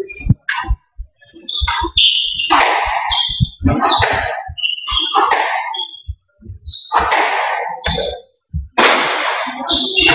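Squash rally: repeated sharp knocks of the ball off the rackets and court walls, mixed with short high-pitched squeaks of players' shoes on the wooden floor, in a reverberant court.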